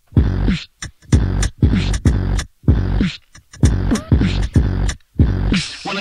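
Hip hop beat of deep bass hits, about two a second, each dropping in pitch, with crisp high clicks over them and short gaps between.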